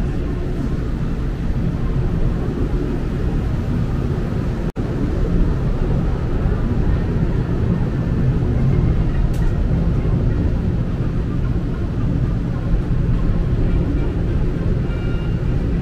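Hong Kong Peak Tram funicular car running up or down its track, a steady low rumble heard from on board. The sound cuts out for an instant just under five seconds in.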